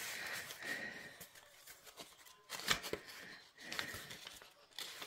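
Soft paper rustling as card tags are handled and journal pages turned, with a few sharper flicks and crinkles of paper.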